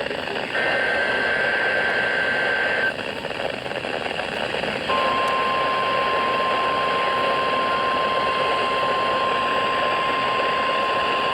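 NOAA Weather Radio alert signals received over hissing static. About half a second in, a roughly two-second burst of SAME digital header data sounds as a high two-pitch tone. About five seconds in, the steady 1050 Hz weather alert tone starts and holds.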